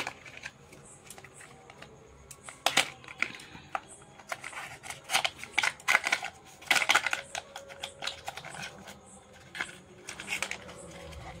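Hands handling product packaging: a small cardboard box with a foam insert and an item in plastic wrap, giving irregular clicks, taps and short rustles of plastic.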